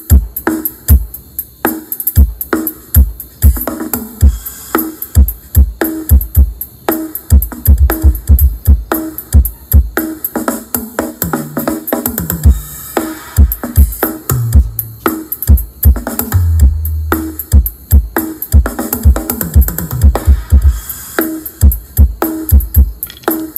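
Electronic dance track with a heavy kick drum on a steady beat and deep bass notes that slide down in pitch, played loudly through a home-built column speaker and subwoofer.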